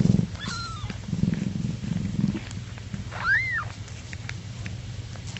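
A mother cat purring in a low, pulsing rumble, with a newborn kitten's high, arching squeaks, one about half a second in and another around three seconds in.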